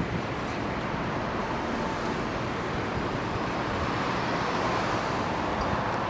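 Steady road traffic noise, swelling slightly about four to five seconds in as a vehicle passes.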